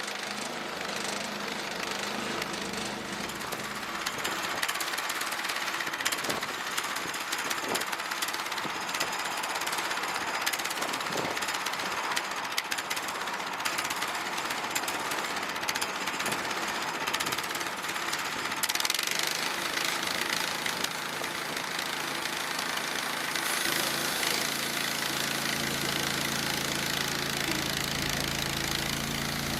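Portable bandsaw sawmill running, its gas engine driving the blade through a cherry log with a loud, rough mechanical noise. Near the end the sound changes into a steadier engine hum.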